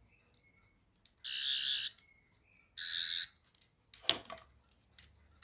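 Toy Doctor Who sonic screwdriver playing its electronic warbling buzz twice, each burst about half a second long, through its small built-in speaker. A sharp click follows about four seconds in.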